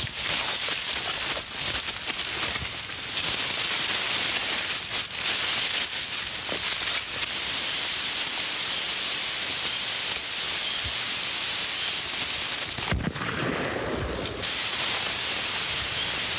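Steady crackling, rustling noise of dry cornstalks and brush being pushed through, with a brief louder, lower rush near the end.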